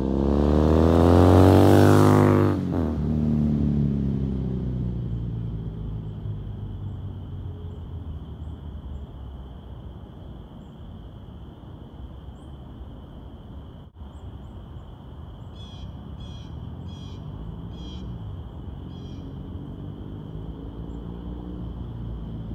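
A 2014 Triumph Thruxton 900 parallel twin with a British Customs aftermarket exhaust passes close at speed. Its engine note climbs as it approaches, drops sharply in pitch as it goes by about two and a half seconds in, then fades away. Later a bird chirps about five times, and other traffic is faintly heard near the end.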